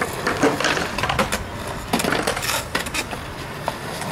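Skateboard on rough concrete: wheels rolling, broken by a string of sharp, irregular clacks and knocks of the deck and wheels hitting the ground.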